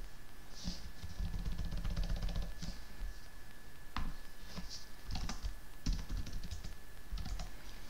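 Typing on a laptop keyboard: irregular, separate key clicks as a terminal command is entered.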